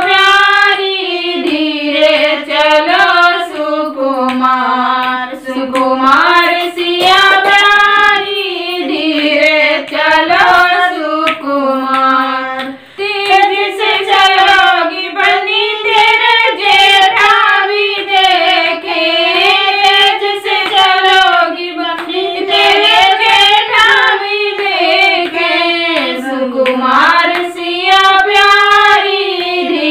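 Women singing a Hindi banni geet, a bridal wedding folk song, without instruments, keeping time with hand claps throughout.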